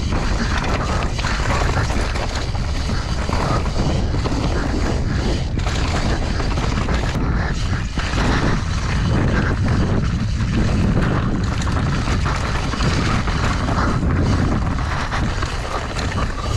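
Mountain bike descending a rocky, leaf-covered trail at speed: tyres rolling and clattering over stones and the bike rattling, with heavy wind buffeting on the camera's microphone.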